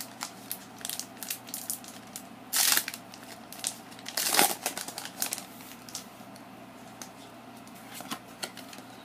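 Foil Pokémon booster pack wrapper crinkling and being torn open, with two louder rips about two and a half and four and a half seconds in, then softer rustling as the cards are handled.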